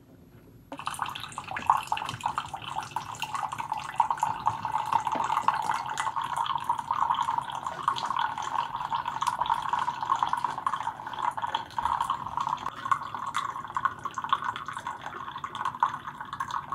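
Keurig K-Slim single-serve coffee maker brewing an 8-ounce cup, starting about a second in: its pump running while a steady stream of hot liquid pours and splashes into a mug.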